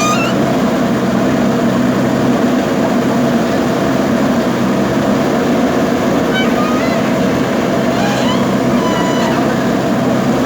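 Diesel engine of a JCB backhoe loader running steadily as the machine works soil. A few short, high rising chirps sound over it in the second half.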